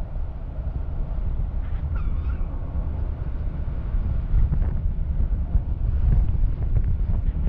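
Wind noise from the airflow over a camera flying with a paraglider in flight: a steady low rumble on the microphone. A faint, short high call sounds about two seconds in.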